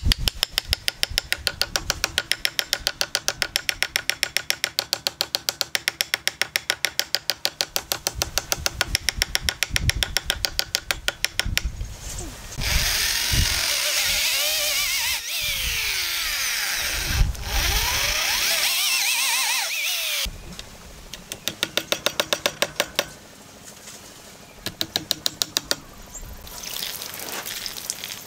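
A fast, even run of hammer taps on a wooden joint, then an electric drill boring into hardwood, its pitch sliding up and down as it runs for about eight seconds. Near the end come more short runs of taps.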